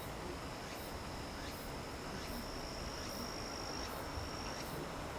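Late-summer insects calling: one keeps up a steady, high, even trill that breaks off near the end, while another gives short, very high chirps at a regular pace, a little under two a second.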